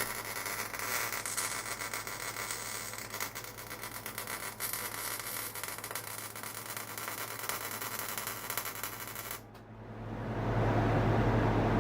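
An electric arc welder's arc crackling and sizzling steadily as weld is laid onto transaxle gears to fix third and fourth gear together. It cuts off suddenly about nine and a half seconds in, and a steady low hum comes up after it.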